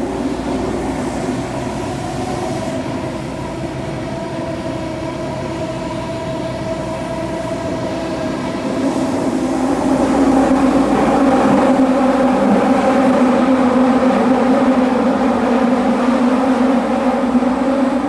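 Running noise heard from inside a Toei Oedo Line subway car: a steady rumble with a low hum, growing louder about ten seconds in.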